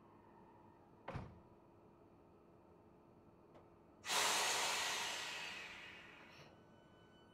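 Sudden loud hiss of compressed air released from a train's pneumatic system, fading away over about two seconds, over a steady low hum; a single thump comes about a second in.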